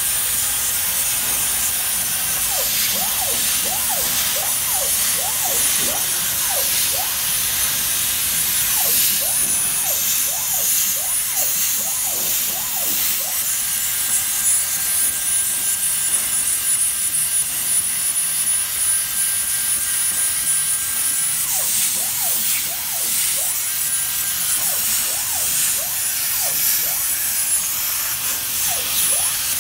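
CNC plasma cutting torch cutting sheet metal: the plasma arc makes a loud, steady hiss, with a thin high whistle running above it.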